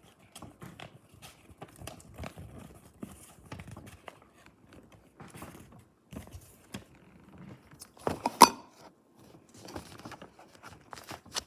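Paper rustling and crinkling in irregular bursts as a large printed guide sheet is unfolded and handled, with one louder crackle about eight seconds in.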